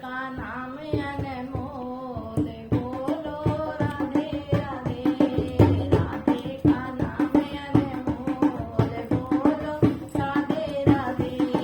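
Hindi devotional bhajan music: a wavering melody line over a steady tabla beat.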